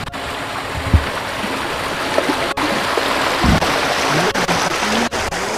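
A steady rush of running water, with two dull low knocks, one about a second in and one midway.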